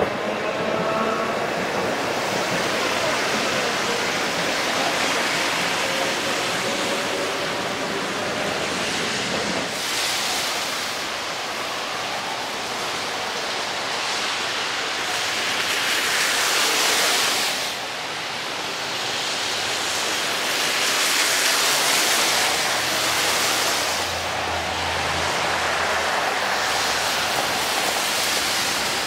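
Street traffic on a wet road: a steady hiss of tyres on wet pavement, swelling as vehicles pass about halfway through and again a few seconds later.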